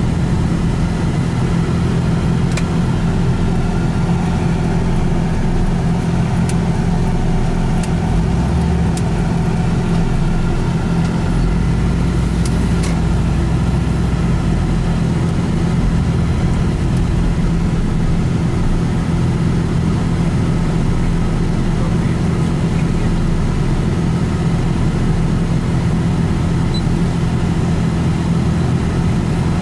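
Steady hum and rumble of a vehicle's engine and road noise, heard from inside the moving vehicle, with a few faint clicks.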